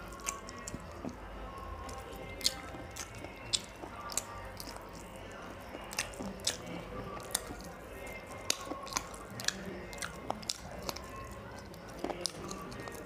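Close-up eating sounds of a man chewing handfuls of rice and chicken curry: wet mouth smacks and many sharp, irregular clicks.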